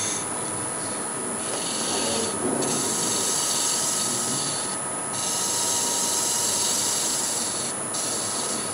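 Spindle gouge cutting wood on a turning lathe: a steady cutting noise broken by short pauses about every two and a half seconds as the tool comes off the work.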